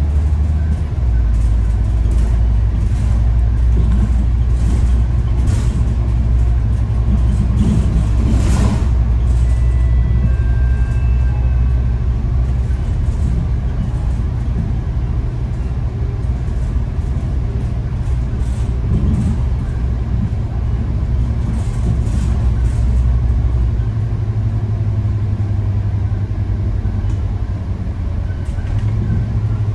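Volvo B9TL double-decker bus's 9-litre transverse-mounted diesel engine and drivetrain, heard from inside the bus as it drives along. A steady low drone whose pitch shifts shortly after the start and again about two-thirds through, with a brief knock or rattle about a third of the way in.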